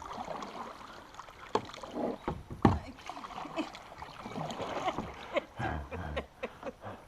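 Kayak on fast-moving creek water: irregular paddle splashes and knocks against the hull over the rush of the current.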